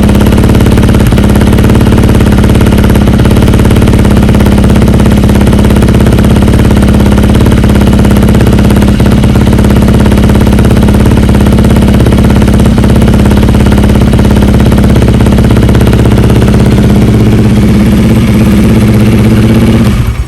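Honda CRF300L's single-cylinder engine idling steadily through a Yoshimura full-system exhaust, loud, with no revving.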